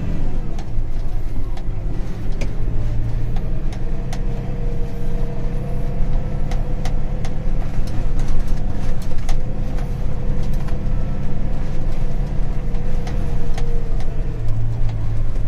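Farm tractor engine running steadily while driving a crop sprayer across a field, with a steady whine above the engine note and scattered light clicks.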